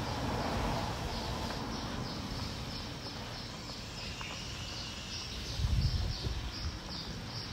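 Stockpot of chicken and bones at a rolling boil, bubbling steadily, while a bird chirps in short, high, falling calls about three times a second. A brief low rumble comes about three-quarters of the way through.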